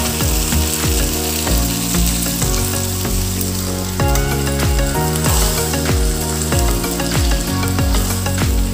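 Background music with a steady beat and deep bass notes, over the sizzle of mushroom masala in a hot kadai as a cup of water is poured in and stirred.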